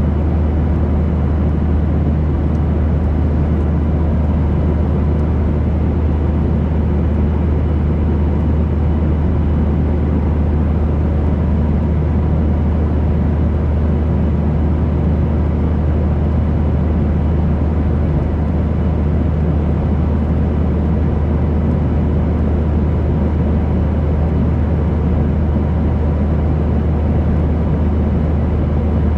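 Airplane cabin noise: the engines and airflow heard from inside the cabin as a steady, loud low rumble. A few faint steady tones sit above it.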